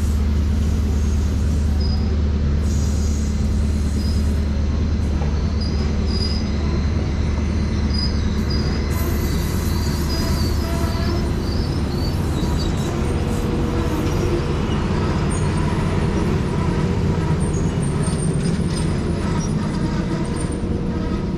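Passenger railroad coaches rolling past on the track, a steady low rumble of wheels on rails with short high chirps in the first half; the rumble eases as the last coach goes by near the end.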